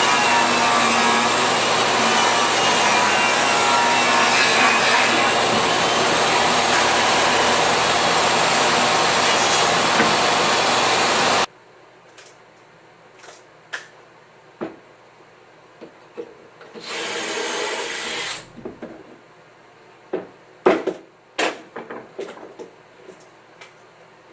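A power tool runs steadily on wood for about eleven seconds and cuts off suddenly. Then come scattered knocks and clicks of wood being handled, a short burst of tool noise lasting about a second and a half, and a quick run of sharp knocks near the end.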